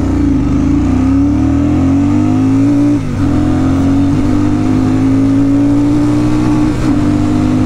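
Royal Enfield Super Meteor 650's 648 cc parallel-twin accelerating hard on a 0–100 km/h run, the engine note climbing. It dips for an upshift about three seconds in, then climbs again more slowly.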